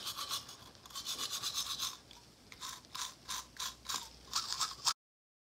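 Rapid rhythmic scrubbing strokes, several a second, in two runs with a short pause about two seconds in; it cuts off suddenly near the end.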